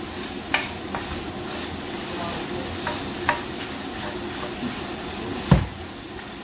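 Minced meat sizzling in frying pans as it is stirred, with short scrapes of the utensil against the pan now and then. A single loud knock about five and a half seconds in.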